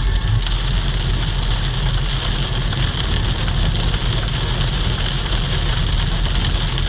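Inside a moving car's cabin: wet snow and sleet hitting the windshield and body in a steady hiss, over the car's low, steady engine and tyre rumble on a slushy road.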